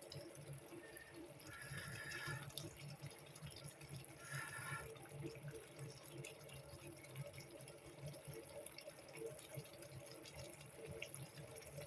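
Faint running water, like a tap running into a sink, over a steady low hum. Two brief higher-pitched sounds come about 2 and 4.5 seconds in.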